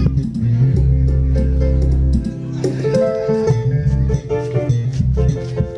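Live band music played loud through a PA: plucked guitar lines over a heavy bass line and a steady drum beat.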